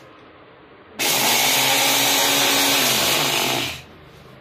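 Baltra mixer grinder's motor running in one short pulse of about two and a half seconds, grinding raw rice in its small jar. It spins up about a second in, runs steadily, then winds down as it is switched off, a pulse to break the rice into a coarse powder.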